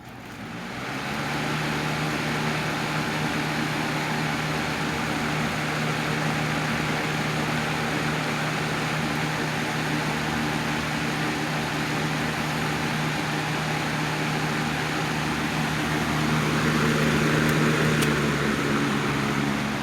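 1987 Patton CA-1284 12-inch rotary box fan switched on, spinning up over about a second into a steady motor hum and rush of air from the blade. It runs with its repaired blade and bearing sleeve and its front guard back on. It gets a little louder near the end, where there are two short clicks.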